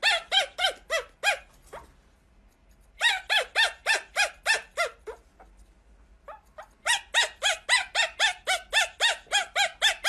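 Pomeranian puppy yapping in quick, high-pitched yips, about four a second, in three runs with short pauses between.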